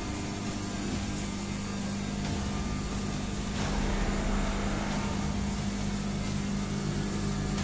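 Steady machine hum from running kitchen equipment, one constant low pitch over an even hiss.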